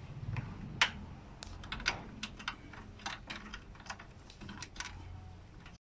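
Irregular light clicks and knocks of a Ford Everest side mirror assembly being handled and fitted against the car's door frame.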